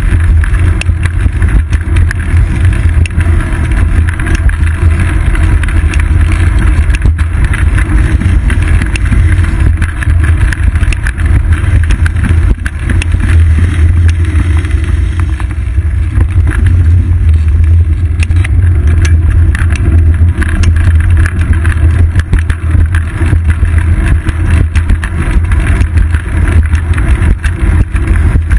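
Loud, steady wind rumble and ride vibration on the microphone of a seat-post-mounted GoPro Hero 2 on a moving bicycle, with many small knocks and rattles as the bike rolls over the walkway.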